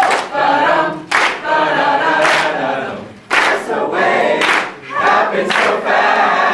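A group of people singing together in chorus, in short phrases with brief breaks between them.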